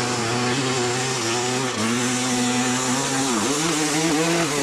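Dirt bike engine revving hard under load as it climbs a steep hill, held high and steady. The revs dip and pick up again about three and a half seconds in and once more near the end.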